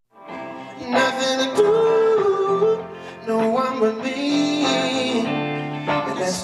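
Live band music with electric guitars. It fades in after a brief silence and grows louder about a second in, with a held melody line bending over the chords.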